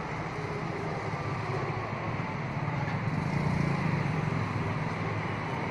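Steady low hum of vehicle engines running, swelling slightly about three and a half seconds in.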